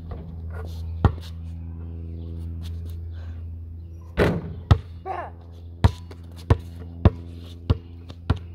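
A basketball striking the hoop and backboard, with a sharp hit about a second in and a louder crash about four seconds in. Then comes a run of sharp bounces on hard ground, about one every two-thirds of a second, over a steady low hum.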